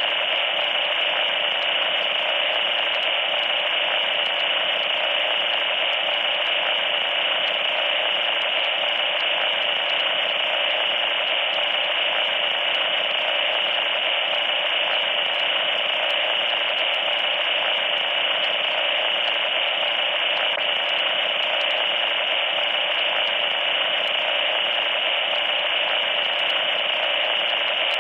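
Loud static noise: a steady, harsh hiss with a shrill high tone running through it, unchanging.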